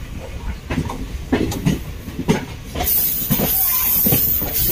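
Passenger train running along the track, heard from aboard: a steady rumble with the wheels clacking over rail joints. About three seconds in, a loud high rushing hiss joins it.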